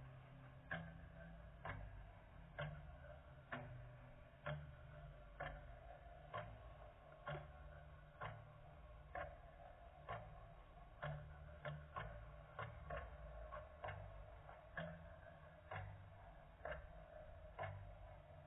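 Faint, very regular ticking: a sharp click about once a second, with a weaker click between some of them, over a low hum.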